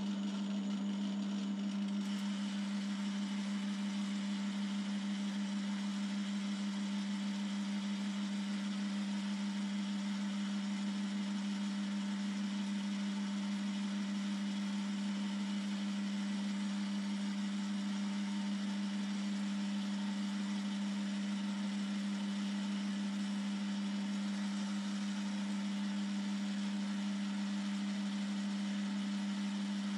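BL250D bench lathe running steadily during thread-cutting passes, its motor giving a constant deep hum with no breaks.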